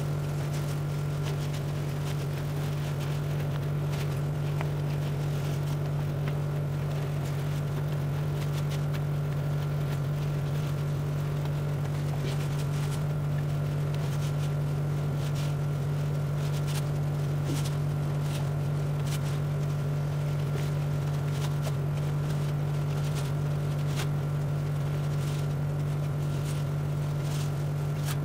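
Cotton fabric rustling and scraping in the hands as a sewn dog dress is turned right side out, with scattered soft ticks, over a steady low hum that is louder than the handling.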